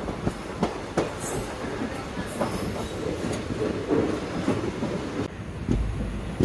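Intercity Express passenger train running along the line, heard from on board: a steady rumble with irregular sharp clicks of the wheels over rail joints.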